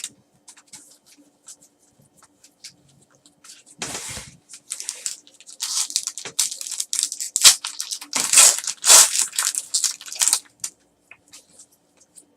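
Trading-card pack wrappers being torn open and crinkled, with cards handled in the hands. After a few faint ticks there is a soft thump about four seconds in, then a run of loud rips and rustles that stops about ten seconds in.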